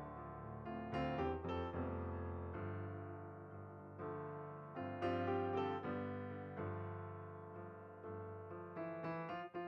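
Background piano music: a slow melody of struck notes and chords, each note ringing out and fading.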